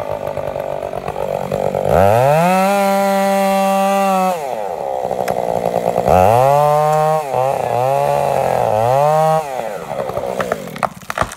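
Two-stroke chainsaw felling a large conifer: idling, then revved to full throttle for about two seconds, dropped back to idle, then revved again in three shorter surges, rising and falling in pitch, before settling back to idle.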